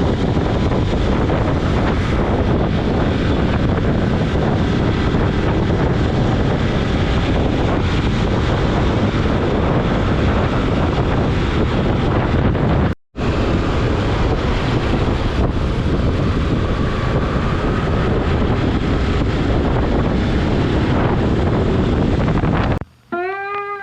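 Heavy wind noise on the microphone of a moving motorcycle, with engine and road noise beneath. It cuts out for a moment about halfway through.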